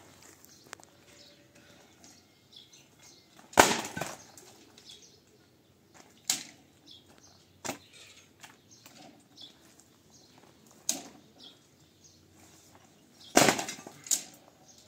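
Several sharp knocks and clatters at irregular intervals. The loudest comes about three and a half seconds in and a cluster near the end, with faint chirps in the background.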